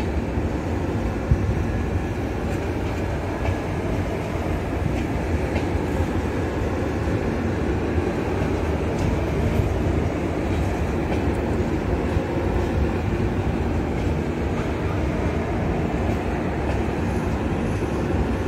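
Passenger coaches of an express train rolling past on the track: a steady rumble of wheels on rail with occasional sharp clicks.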